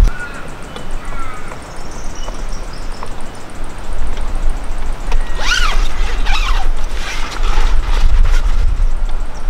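Wind rumbling on the microphone, with a cluster of creaks, squeaks and knocks from the ladder and rooftop tent as they are climbed and handled, about five seconds in.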